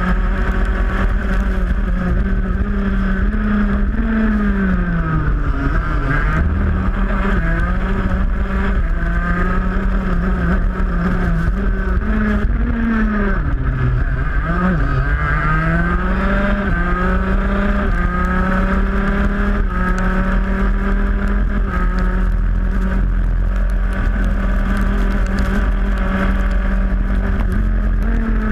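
125cc two-stroke shifter kart engine running hard, heard onboard: a steady high engine note that drops and climbs back about five seconds in and again around fourteen seconds in, over a constant low wind rumble.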